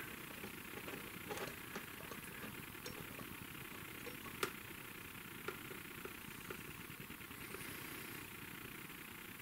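Quiet soldering of a wire onto a guitar output jack lug: a faint steady hiss with a few soft ticks, the sharpest about four seconds in.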